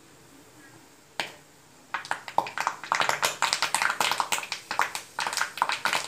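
Fresh drumstick (moringa) leaves crackling and spluttering in hot, freshly clarified ghee in an iron kadai. There is a single pop about a second in, then dense crackling from about two seconds in as the water in the leaves hits the hot fat.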